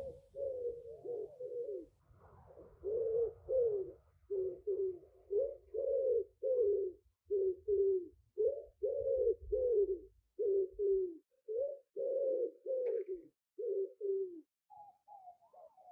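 Pigeons cooing: a long run of short, low coos, about two a second, with a brief pause about two seconds in, stopping shortly before the end, where a few higher notes follow.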